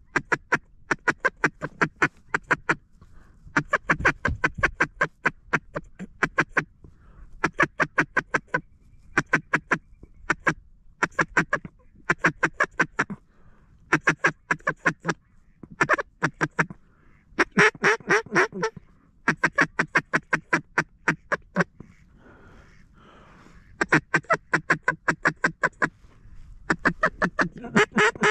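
Duck quacking in fast runs of short quacks, each run about a second long, repeated over and over with brief pauses.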